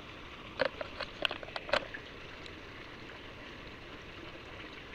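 Steady splashing of a jet of water pouring into a small concrete trout pond. About a second in comes a quick run of short clicks and ticks.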